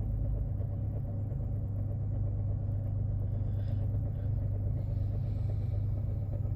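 Ford 3.5L EcoBoost twin-turbo V6 of a 2013 Taurus SHO idling on a cold start, with a rhythmic chatter. The owner suspects a worn cam phaser together with timing-chain slap from a broken chain guide.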